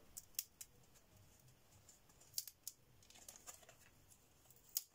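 Faint, scattered clicks and taps of thin laser-cut plywood pieces being worked out of their sheet by hand, with one sharper snap near the end as the small wooden clock hand breaks.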